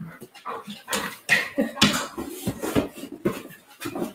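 Objects being moved around in a cardboard box, with irregular clattering and knocking as they hit each other and the box.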